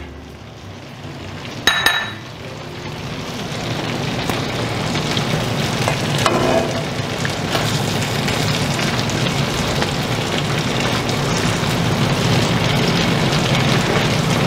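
Achuete (annatto) oil with chicken pieces sizzling in an aluminium wok, growing louder over the first few seconds and then steady. A single ringing metal clink about two seconds in, and a softer knock about six seconds in, as a metal spoon works in the pan.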